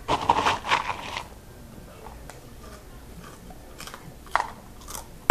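Chewing a mouthful of crunchy cheese snacks (Flamin' Hot Crunchy Cheetos): a burst of loud crunches in the first second, then a few fainter crunches later on.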